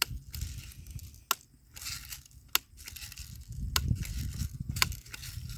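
BB gun being worked by hand: four sharp metallic clicks about a second apart, with rustling handling noise and low rumble between them.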